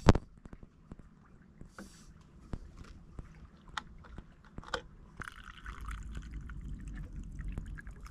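A metal vacuum flask knocked down onto a wooden picnic table, then small clicks and scrapes as its cap is handled and unscrewed. A longer rustling noise with a low rumble fills the last few seconds.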